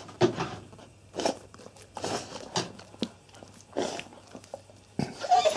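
Alaskan malamute licking and mouthing a dead duck: a string of short, irregular wet licks and mouth smacks, roughly one every half second to second.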